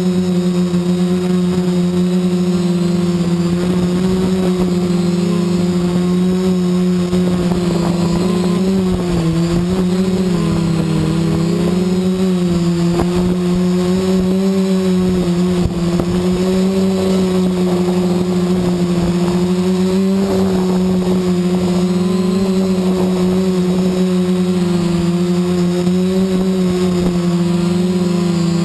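Quadcopter's electric motors and propellers buzzing steadily in flight, heard from a camera mounted on the craft itself. The pitch wavers briefly about nine to eleven seconds in and again around twenty seconds.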